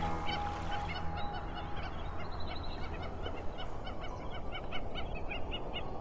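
A dense chorus of many short, repeated waterfowl calls over a steady low hum. A held musical note sounds through the first two seconds or so.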